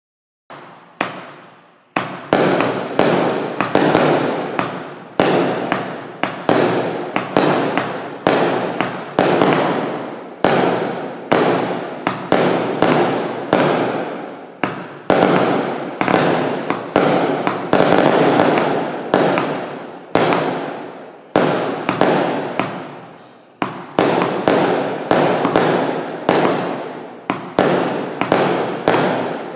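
An 86-shot compound firework barrage (cake) firing: a rapid, unbroken string of launches and bursts, about two a second, starting about half a second in.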